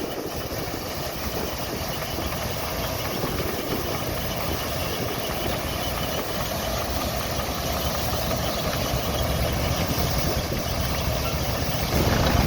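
Vintage crawler tractor's engine running steadily, growing slowly louder, with a louder surge near the end.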